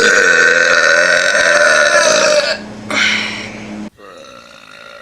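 A person belching loudly: one long, drawn-out burp of about two and a half seconds, then a shorter burp, then quieter burping after an abrupt drop in loudness.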